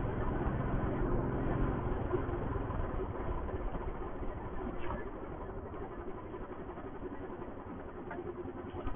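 Royal Enfield Thunderbird's single-cylinder engine running as the motorcycle is ridden, heard from the rider's seat. It is loudest for the first few seconds, then gradually quietens as the bike eases off and slows.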